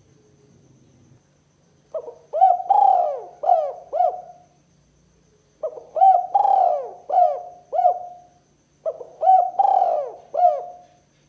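Spotted dove cooing: three song phrases a few seconds apart, each a quick run of about five arched coos, the second coo in each phrase the longest.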